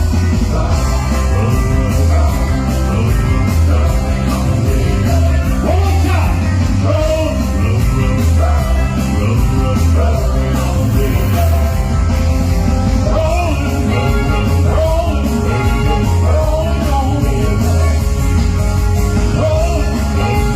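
Rock and roll music with a singing voice over a steady bass beat.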